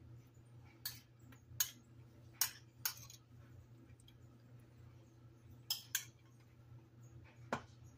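A metal spoon clinking and scraping against a small ceramic plate while someone eats from it: about seven short sharp clinks at uneven intervals, with a faint steady low hum underneath.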